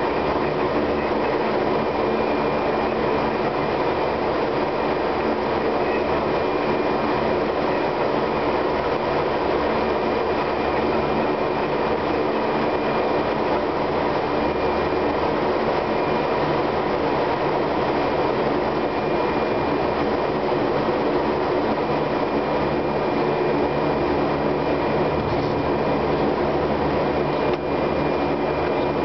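Fokker 50's twin turboprop engines and propellers running at taxi power, heard from inside the cockpit: a steady drone with a thin high whine over it.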